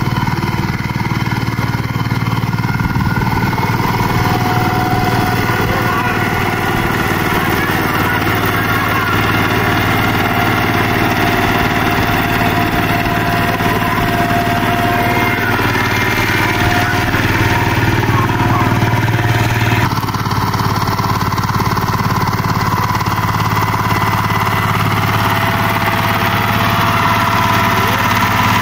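VST 135 DI power tiller's single-cylinder diesel engine running steadily under load as its rotary tiller churns a flooded paddy field to puddle it for rice. The sound changes abruptly about two-thirds of the way through.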